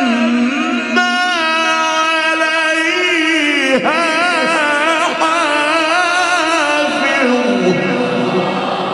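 A man's solo Quran recitation in the melodic mujawwad (tilawat) style: one long melismatic line held on sustained vowels, with wavering ornaments and short breaths about a second in and near four seconds in. The voice drops lower and fades near the end.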